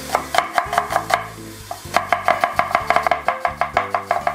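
Knife chopping an onion in quick, even strokes, about six or seven a second, in two runs with a pause of under a second between them, over background music.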